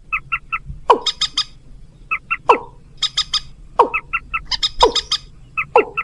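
Bird-lure recording of purple swamphen and watercock calls. Sharp downward-sliding calls come about once a second, between quick groups of three higher notes and fast runs of clicking notes.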